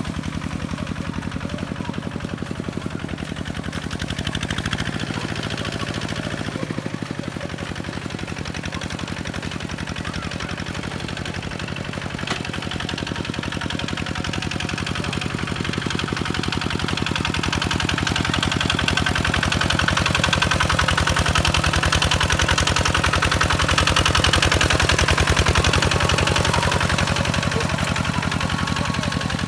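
Kubota two-wheel walking tractor's single-cylinder diesel engine chugging steadily under load as it pulls a disc plough through wet mud. It grows louder in the second half as the tractor comes close.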